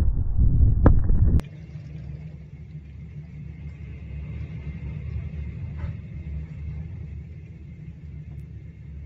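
Typhoon wind buffeting the microphone with a loud rough rumble, cutting off abruptly about a second and a half in. A much quieter steady low rumble with a faint thin whistle follows.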